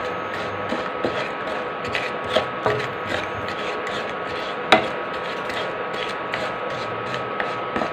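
Flat spatula scraping and stirring lumps of jaggery melting in ghee in a non-stick pan, in repeated short strokes, with one sharp knock of the spatula against the pan about halfway through. A steady thin whine from the running induction cooktop sits underneath.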